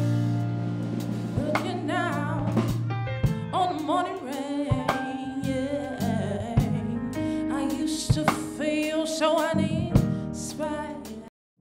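A woman singing a soul/gospel-style song live with a band of keyboard, electric bass and drum kit, with drum and cymbal hits; the music cuts off abruptly near the end.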